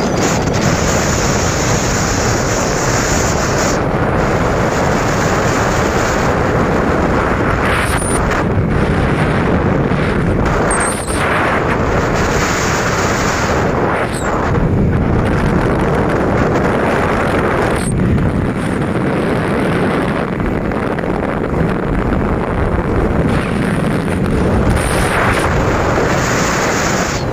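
Steady wind rush on the microphone from travelling along a road, with vehicle engine and road noise underneath.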